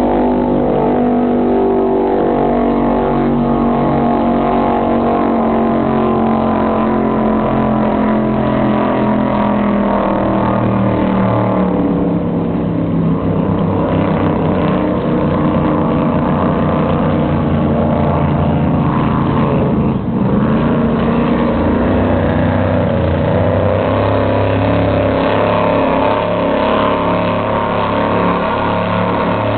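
Engines of offshore powerboat racers running hard on the river. Their pitch slides slowly down over the first twelve seconds, dips about twenty seconds in, then climbs again.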